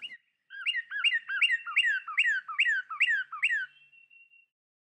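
Northern cardinal song: a run of about eight clear whistles sliding down in pitch, two or three a second, ending on a faint thin held note.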